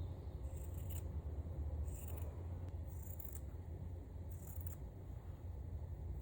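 Scissors cutting fabric: four crisp snips about a second apart.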